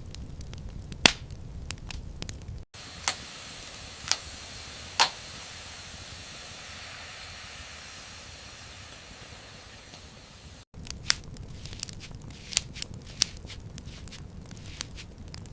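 Cooking sounds cut together in three sections. First, crackling with sharp pops over a low rumble. Then, after an abrupt cut, a steady high hiss with three loud pops about a second apart. After a second cut, crackling and popping again.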